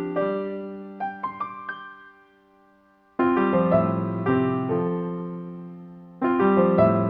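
Piano background music: struck chords die away, a short run of higher notes follows, and after a brief pause new chords come in about three seconds in and again near the end.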